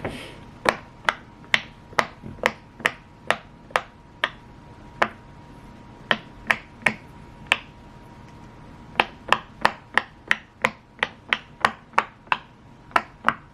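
A fidget toy being pressed over and over: sharp separate clicks in irregular runs of about two to three a second, broken by two short pauses.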